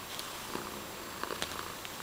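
Domestic tabby cat purring steadily while resting.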